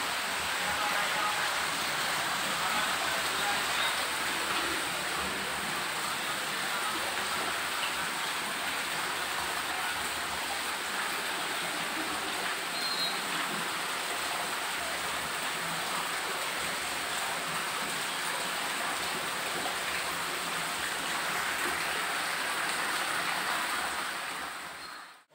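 Artificial rock waterfall pouring into a koi pond: a steady rush and splash of falling water.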